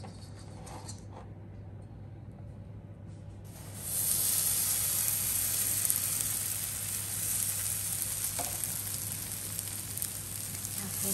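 Grated potato and onion pancake batter poured into hot oil in a nonstick frying pan, setting off a steady sizzle that starts suddenly about a third of the way in. Before that, only a low steady hum.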